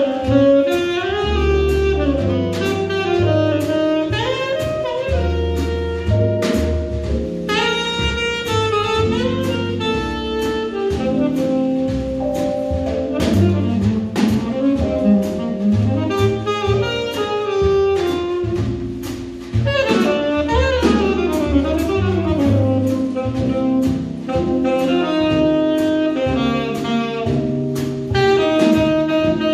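Live jazz quartet: saxophone playing the melody over piano, walking double bass and a drum kit with cymbals.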